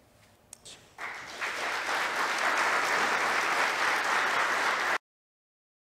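Audience applause starts about a second in, grows, holds steady, then cuts off suddenly.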